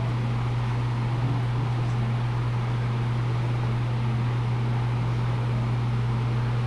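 An electric blower motor running steadily, a constant low hum with a rush of air over it.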